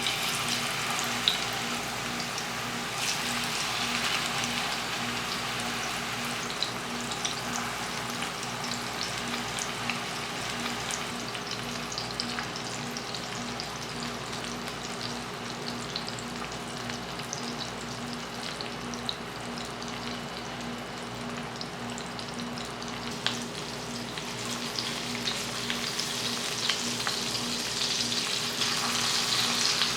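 Pieces of fish fillet shallow-frying in hot coconut oil in a pan: a steady sizzle with scattered pops and crackles. The sizzle swells again near the end. A faint steady hum sits underneath.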